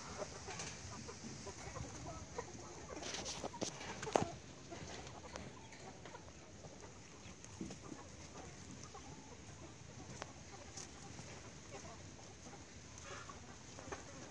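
Chickens clucking quietly, with scattered short calls over a faint outdoor background.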